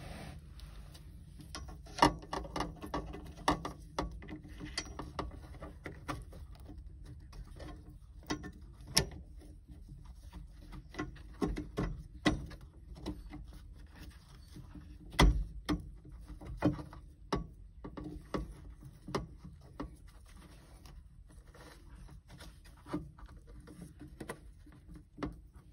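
Irregular clicks and knocks of hand tools working on a VW Beetle's shift rod at the shift coupler as a part is taken off, the loudest knocks about two seconds in and again about fifteen seconds in.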